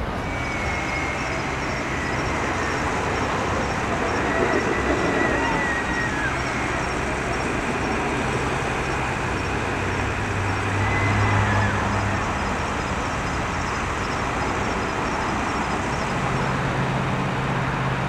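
Road traffic noise: vehicles running past, with a low engine hum that swells about ten seconds in.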